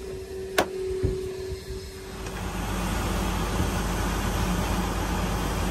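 A steady hum with a few sharp clicks, then about two seconds in a vehicle engine running with a dense rushing noise over a low hum.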